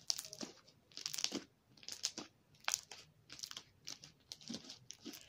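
Slime being whipped by hand, making a repeated series of short crackling squishes a little more than once a second.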